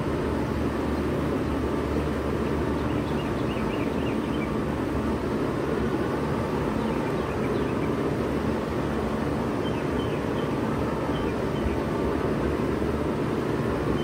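1996 Bard 3-ton wall-hung heat pump running steadily in cooling mode, its compressor hum under the steady rush of the condenser fan.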